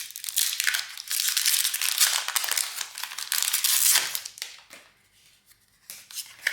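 Foil booster pack wrapper being torn open and crinkled: a dense crackling rustle for about four seconds that dies down, followed by a few faint taps.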